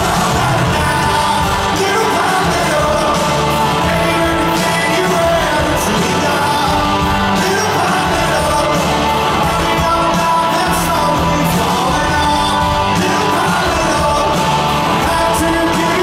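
Live rock band playing a mid-tempo song, with a man singing the lead over electric guitar and drums, heard from the crowd in a large hall.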